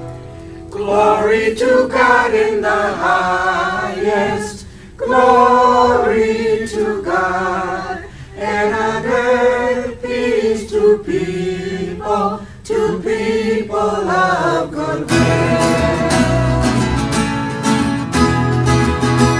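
Background music: a song with singing voices. About fifteen seconds in, it gives way to a rhythmic strummed passage, likely guitar.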